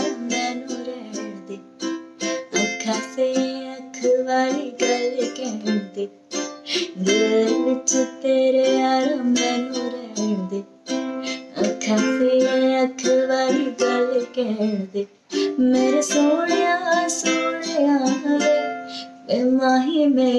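Ukulele strummed in a steady rhythm, with a woman singing a gliding melody over it. The strumming drops out briefly twice.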